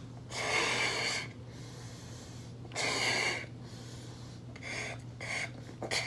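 A person breathing hard while blowing up a balloon by mouth: two long rushes of breath about two and a half seconds apart, then several shorter, quicker breaths near the end.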